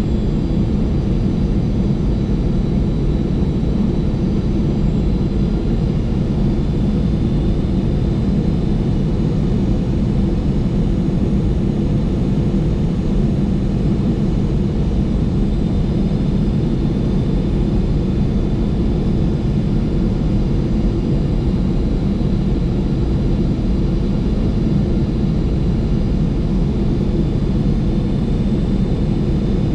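Steady flight-deck noise inside a Boeing 747-400 freighter rolling on the ground after landing: an even low rumble of the engines and airflow, with a faint high whine above it, unchanging throughout.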